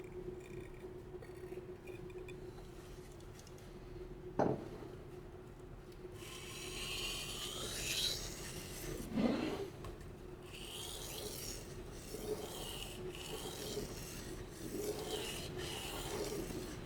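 Knife blade of Aogami Blue #2 steel being stroked across a wet whetstone: gritty scraping strokes, one every second or two, starting about six seconds in, after a single sharp knock around four seconds in.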